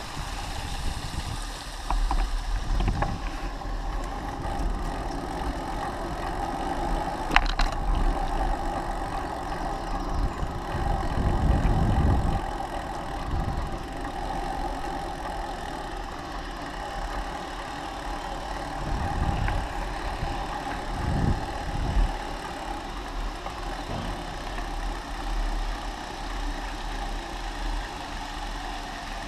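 Steady riding noise from a handlebar-mounted camera on a bicycle: a continuous hum with irregular low rumbles of wind buffeting the microphone, strongest a little before the middle and again past it. There is one sharp click about seven seconds in.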